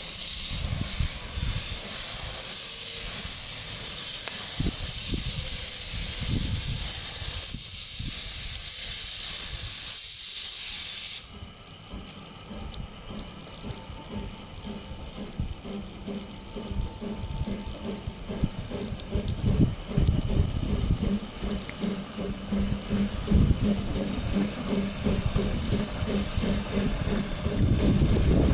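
Winson-built narrow-gauge steam locomotive letting off a loud, steady hiss of steam that cuts off abruptly after about eleven seconds. The locomotive then runs on with a quieter, rhythmic sound of its running gear on the track, growing louder as it draws near and passes.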